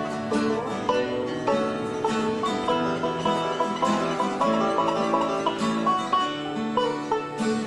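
Instrumental background music of quickly picked string instruments, in a bluegrass style, with many fast notes and no singing.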